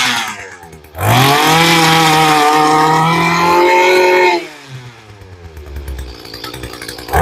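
Mantis tiller's small two-stroke engine revved up to high speed, rising in pitch and then holding for about three seconds, before dropping back to a lower idle; it revs again near the end. The high-speed carburetor mixture is still being set after the rebuild.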